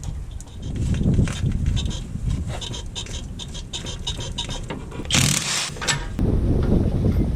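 Suzuki Jimny JA11 leaf springs squeaking in short, irregular chirps over a low road rumble as the vehicle moves: the abnormal leaf-spring noise that a leaf-bushing replacement is meant to cure. About five seconds in, a brief loud rush of noise covers it.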